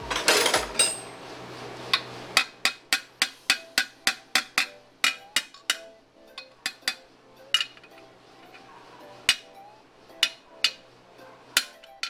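Hammer striking a metal drift set on a ball bearing in an aluminium Honda CBR150R crankcase half, driving the bearing into its bore: sharp metallic taps, about three a second from about two seconds in, then slower, spaced single taps. A brief loud clatter comes at the very start.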